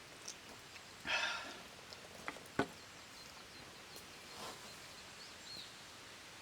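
Quiet outdoor background with a short rustle about a second in, then two sharp clicks a third of a second apart, the loudest sounds, and a softer rustle later.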